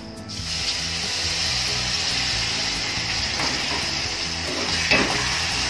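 Water poured into a hot wok of frying pork belly and shrimp paste hits the oil and sets off a steady sizzle about half a second in. A metal spatula scrapes the wok a couple of times as the meat is stirred.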